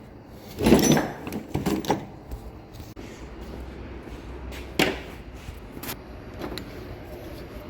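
A few knocks and clicks of things being handled, the loudest about a second in, over a low steady hum.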